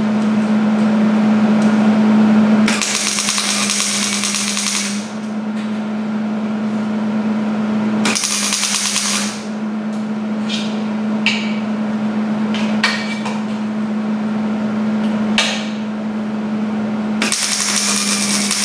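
Hobart wire-feed welder tack-welding steel scrap. It crackles and sputters in several separate bursts: one of about two seconds early, one of about a second, a few short blips, and another of about two seconds near the end, over a steady low hum.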